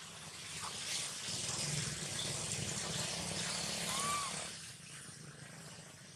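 A broad rushing noise swells about a second in and fades away after about four and a half seconds, with one short rising-and-falling squeak near the four-second mark.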